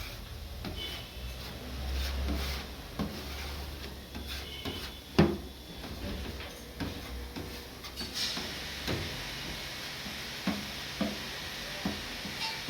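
Scattered knocks and clunks of objects being handled, with one sharp, loud knock about five seconds in; a steady hiss sets in about eight seconds in.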